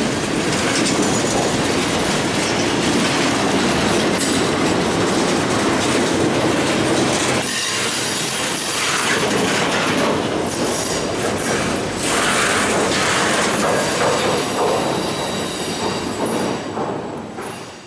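Freight train's flatcars rolling past close by, steel wheels running over the rail with a clattering rhythm and some wheel squeal. The sound fades near the end as the last car clears.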